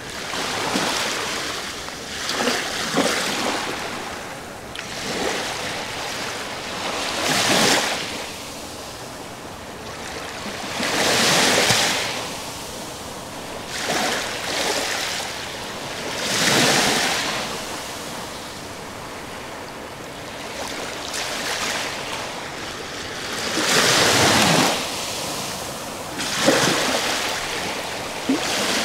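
Small sea waves breaking and washing up a shelly shore, one surge every few seconds, some louder than others.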